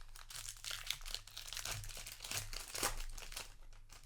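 Foil wrapper of a Magic: The Gathering set booster pack crinkling as it is torn open and handled, a continuous run of dense crackles that stops near the end.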